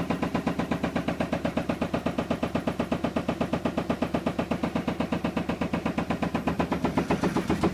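Kenmore washing machine banging in rapid, even knocks, roughly nine a second, as the badly out-of-balance drum shakes the cabinet. The vibration guard fitted to stop this is not holding it.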